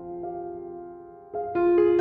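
Soft background piano music: sustained notes fading away, then a new, louder chord struck about one and a half seconds in.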